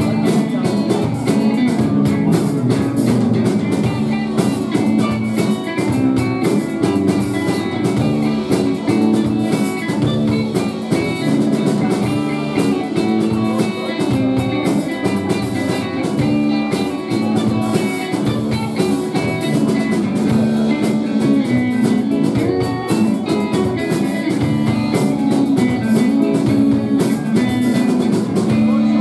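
Live rock band playing: electric guitar over a drum kit, with a steady beat.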